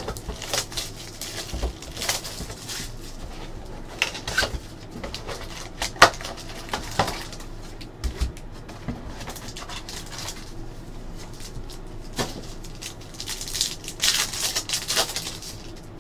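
Crinkling and tearing of cellophane shrink wrap and foil trading-card pack wrappers, with clicks and scrapes from a cardboard card box being opened and handled. A denser run of crinkling comes near the end.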